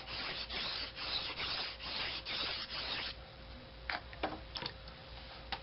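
Steel knife blade stroked back and forth across a wet Japanese water stone, a scraping rasp at about two to three strokes a second. The strokes stop about three seconds in, followed by a few light clicks.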